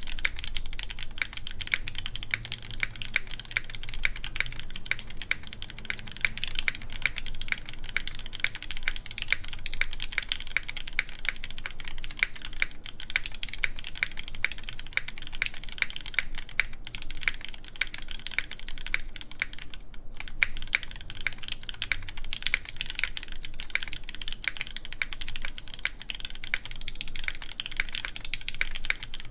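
Continuous fast typing on an iNN Studio Parabolica60 mechanical keyboard with lubed Gateron Red Ink linear switches, an aluminium plate and GMK keycaps, set in a tadpole pin mount (hard on the corners, soft in the middle). Keystrokes click densely and evenly throughout.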